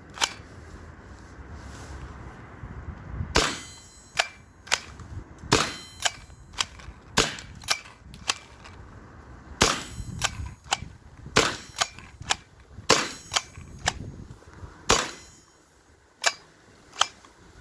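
Nelspot 007 CO2 paintball pistol being fired again and again: a long run of sharp pops and clicks, mostly half a second to a second apart, after a short pause near the start.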